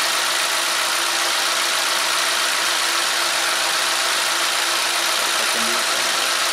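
Four-cylinder ECOTEC engine of a 2012 Chevy Equinox idling steadily, an even hissy running noise with a faint steady hum.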